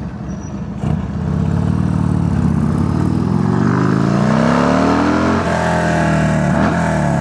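Harley-Davidson Sportster V-twin engine through a new Cobra El Diablo 2-into-1 exhaust, accelerating with rising pitch, dropping at a gear change about five seconds in, pulling again briefly and easing off near the end.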